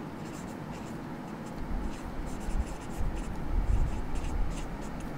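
Marker pen writing on a board: a run of short, faint scratchy strokes as letters are drawn, with a low rumble underneath from about a second and a half in.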